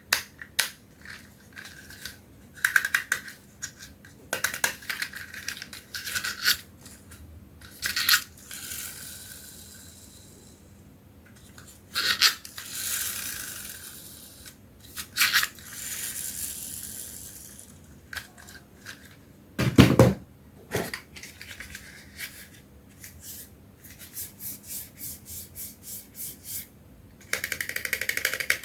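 Small hard plastic toys clicking, clattering and knocking against each other, with a few stretches of rustling or rolling noise lasting a couple of seconds each and one heavier knock about two-thirds of the way through.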